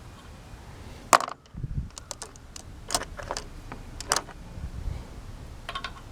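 Metal hand tools clinking and clicking as sockets are picked through and tried for size, with about half a dozen sharp clinks and the loudest about a second in.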